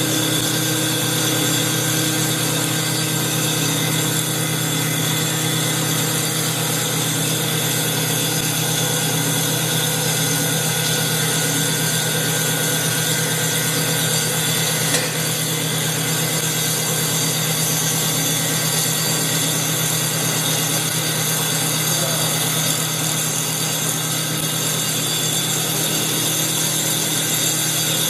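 CNC wood lathe with a saw-blade cutter head cutting along a spinning baseball bat blank, 3 mm per pass: a steady mix of motor whine and the blade cutting wood. A single brief click comes about halfway through.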